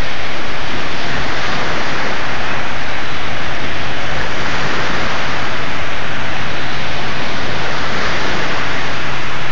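Small waves washing onto a beach, heard as a loud, even rushing noise with no clear rise and fall.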